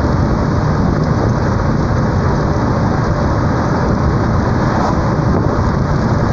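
Storm wind and heavy rain during a tornado: a loud, steady roar of noise, heaviest in the low end, with no break.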